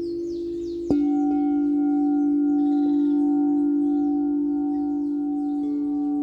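Singing bowls ringing in long sustained tones. A bowl is struck about a second in, adding a deep hum with higher overtones, and another softer tone joins near the end.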